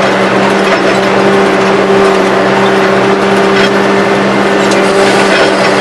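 Turbocharged tractor engine running steadily at a constant speed, with an even hum.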